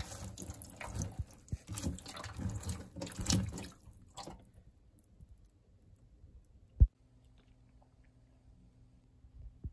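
Strawberries being swished by hand in a bowl of water, with splashing and dripping, for about four seconds. Then near silence, broken once by a single sharp click.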